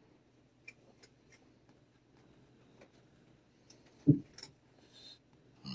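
Faint scratchy rustling of a leather work glove rubbing a cat's fur, with one dull thump about four seconds in and a couple of soft brief noises after it.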